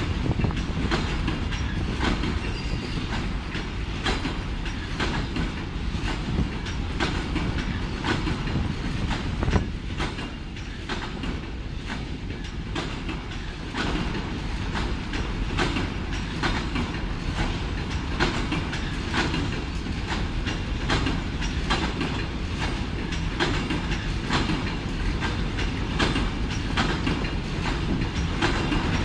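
Freight train of enclosed double-deck car-carrier wagons rolling past: a steady rumble of wheels with a continual clatter of clicks as the wheels run over rail joints.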